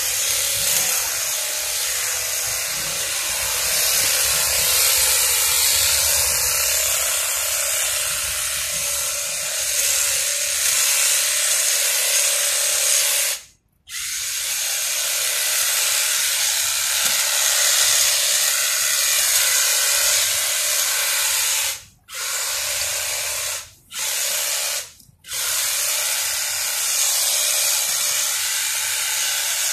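Makita cordless hedge trimmer running, its motor and reciprocating blades cutting through a low shrub. The motor cuts out for a moment about halfway through, then three more short stops come close together in the last third, each followed by an immediate restart.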